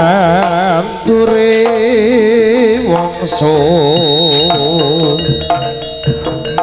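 Live jaranan gamelan music: a lead melody wavering strongly in pitch over held tones and drum strokes.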